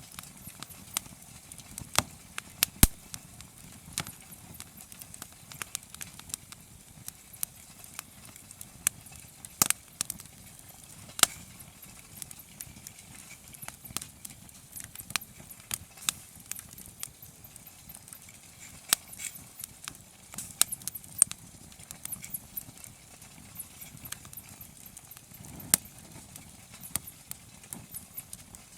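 Wood campfire crackling: irregular sharp pops and snaps, several a second at times, over a soft hiss of burning.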